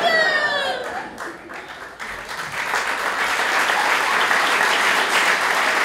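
Theatre audience applauding, the clapping swelling about two seconds in and then holding steady. At the start a long note sliding down in pitch fades out under it.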